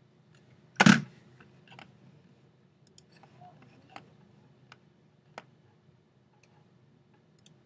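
A single loud thump about a second in, then a few light, scattered computer-mouse clicks.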